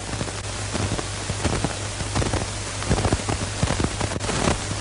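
Surface noise of an old film soundtrack: steady hiss with irregular crackles and pops over a constant low hum.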